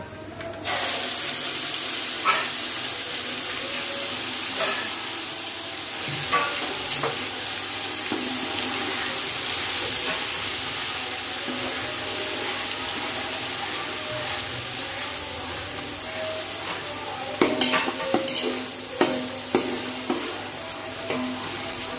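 Ginger-garlic-chilli-coriander paste hitting hot mustard oil in a large pot: a sizzle starts suddenly about half a second in and keeps up steadily. A ladle stirring the paste knocks and scrapes against the pot now and then, most often near the end.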